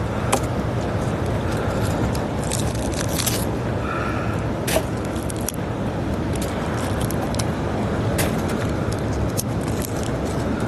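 Steady rush of strong sea wind and surf, with scattered sharp clicks and scrapes of goose barnacles being prised off the rocks.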